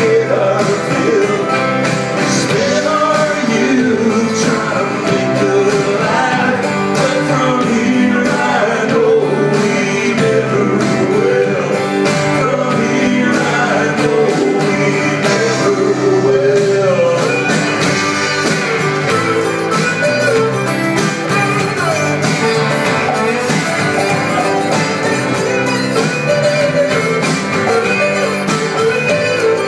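Live band playing a country-rock song on strummed acoustic guitars, including a twelve-string, with electric guitar, drums and singing.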